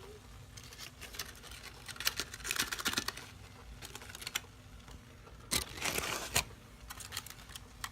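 Aluminum foil crinkling and rustling as a cooked foil packet is opened, with clusters of small clicks and crackles and two longer rustles a little past halfway.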